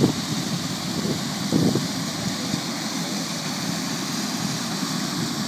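Water gushing steadily out of an irrigation main-line drain as the pressurised line empties.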